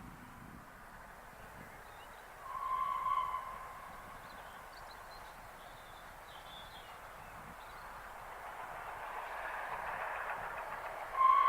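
Steam locomotive whistle sounding a short single-note blast, then a second, longer blast near the end, over the growing rush of an approaching train.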